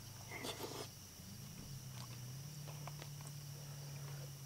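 Quiet: a low steady hum and a faint high steady tone under a soft brief rustle just under a second in, with a few light clicks scattered through.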